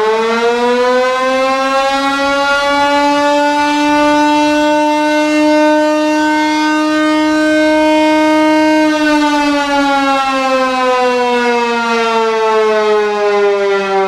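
Large electric mechanical air-raid siren, its spinning rotor chopping the air into one loud wailing tone. The pitch keeps climbing as it finishes spinning up, holds steady for a few seconds, then slides slowly down from about nine seconds in as the rotor slows.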